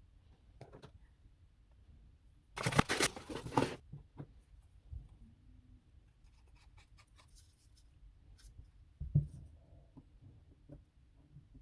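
Packaging being handled during an unboxing: a noisy rustle or tear of about a second, then scattered light clicks and one thump.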